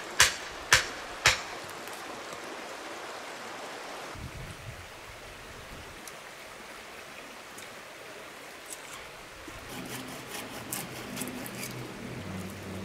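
Hatchet pounding a wooden stake into the ground: three sharp blows about half a second apart in the first second and a half. Then a steady rush of river water, with light knocks and rustling near the end as the handrail pole is handled.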